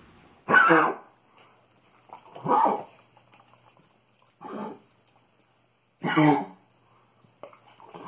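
Black and tan coonhound with kennel cough, giving the goose-like honking cough typical of the illness. Four separate coughs come about two seconds apart, and another starts near the end.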